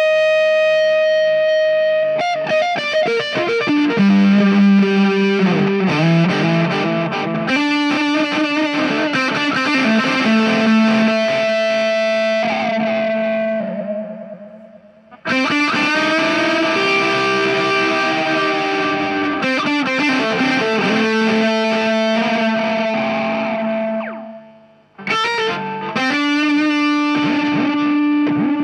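Distorted electric guitar playing sustained lead phrases through a Soldano SLO 30 mini valve amp head, with a distortion pedal and an analog delay pedal in front of the amp. Notes ring out and die away about halfway through and again near the end before new phrases start.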